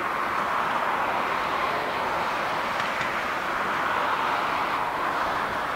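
Four GEnx-2B turbofan engines of a Boeing 747-8 freighter running at low taxi thrust as it turns onto the runway to line up for take-off: a steady jet rush.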